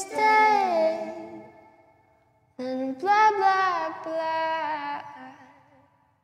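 A young woman singing softly over a ukulele in two drawn-out phrases, each trailing off into a short near-silent pause.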